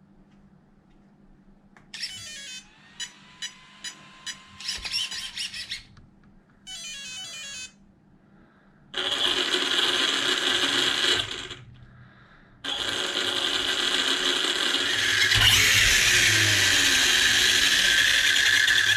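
Castle Mamba Monster X 8S ESC sounding its startup beep tones through the 1717 1650 kV brushless motor, then the motor and drivetrain of an Arrma Kraton EXB RC truck spinning up under throttle twice, a short burst and then a longer, louder run. The truck drives off in reverse, a sign that the ESC's throttle direction is set backwards.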